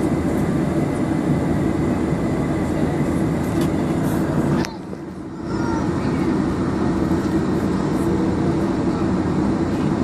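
Boeing 747-400 cabin noise while taxiing: a steady rumble of engines and air-conditioning with a faint high whine. About halfway through, a click, then the sound drops away sharply for about a second before it returns.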